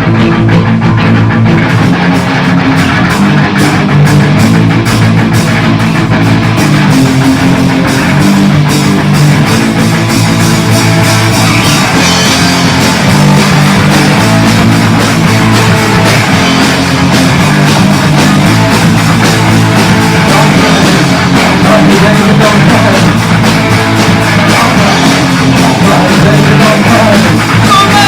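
Punk rock song from a band's demo recording: electric guitar, bass guitar and drums playing loud and steady, with singing coming in near the end.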